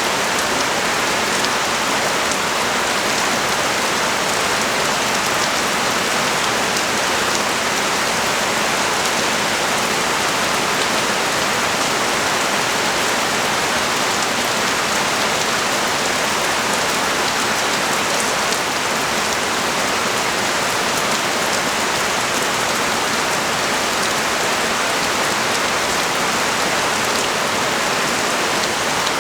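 Heavy rain pouring steadily, a dense even hiss of drops on the street and surfaces below.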